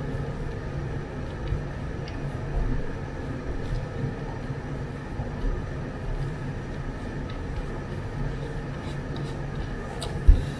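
Steady low hum, with faint clicks and taps as the plastic case of an 18 V power-tool battery pack is handled and worked apart by hand. A single sharp knock comes near the end.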